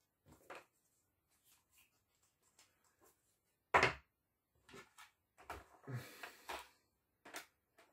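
Hard plastic dart-blaster parts and foam darts handled on a wooden table: light clicks, a louder knock about four seconds in, then a run of knocks and clatter as the assembled Zuru X-Shot Regenerator blaster is picked up.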